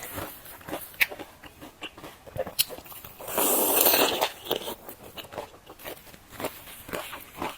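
Close-up biting and chewing of crispy fried dough sticks: a run of small crackly crunches, with one louder, noisier crunch lasting about a second about three and a half seconds in.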